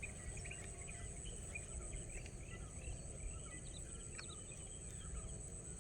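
Outdoor ambience: many short bird chirps scattered throughout over a steady high insect drone, with a low rumble underneath.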